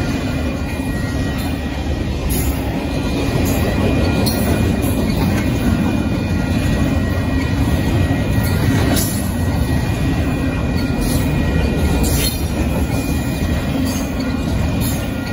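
Intermodal freight train's double-stack container cars rolling past with a loud, steady rumble, steel wheels clacking now and then over the rail. A faint, steady high-pitched squeal runs underneath.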